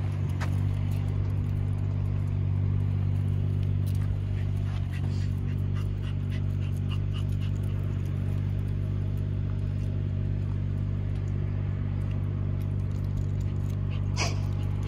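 A vehicle engine idling steadily with a constant low hum, plus a few faint light ticks.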